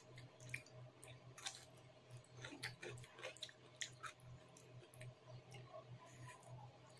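Faint close-miked chewing of chicken and rice eaten by hand: many short, wet mouth clicks and smacks in irregular succession, over a low steady hum.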